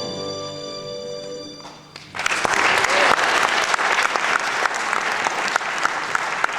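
The musical accompaniment holds a final chord and dies away, then an audience bursts into applause about two seconds in and keeps clapping.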